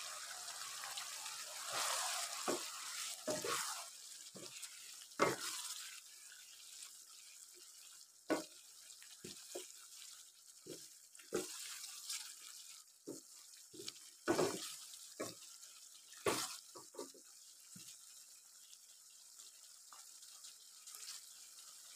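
Wooden spatula knocking and scraping against a wok as a meat curry is stirred, in short irregular strokes, over the faint steady hiss of the simmering pot.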